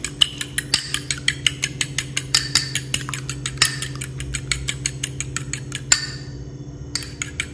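Metal fork beating eggs in a ceramic bowl: rapid, even clinks of the tines against the bowl, several a second, stopping about six seconds in.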